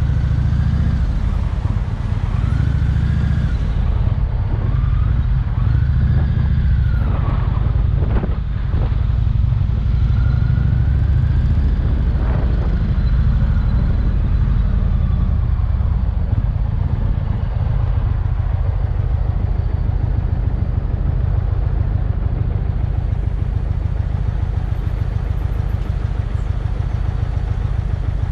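Indian touring motorcycle's V-twin engine running at low speed in city traffic, a steady low rumble, with a couple of short knocks about eight and twelve seconds in.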